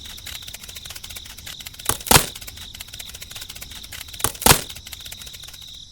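Two sharp double knocks, about two seconds apart, over a steady high-pitched insect trill.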